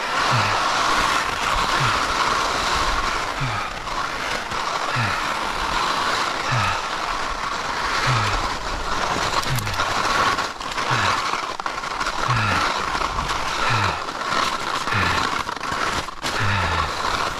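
Skis scraping and chattering over wind-crusted snow with a thin layer of dust on top, during a downhill run. A short low falling sound repeats about once a second.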